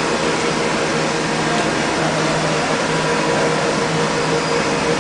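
Kasto HBA 360AU automatic horizontal band saw running, a loud, steady machine hum with a few held tones under an even noise.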